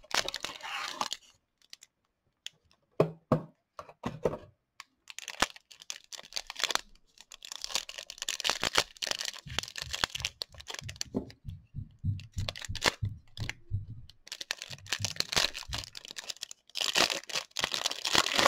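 Clear plastic wrapper of a trading-card pack crinkling and tearing as it is ripped open by hand, in irregular bursts with a few sharp clicks.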